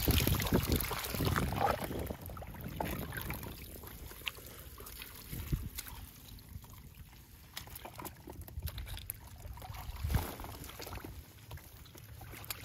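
Water splashing and sloshing as a hand rummages through live small fish in a plastic basket, dying down after about two seconds to quieter scattered taps and rustles.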